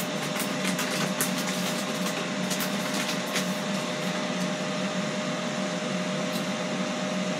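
Ninja Foodi XL Grill's fan running steadily while it preheats in air-crisp mode: an even whir with a faint constant tone. A plastic breading bag crinkles several times in the first few seconds as it is folded up.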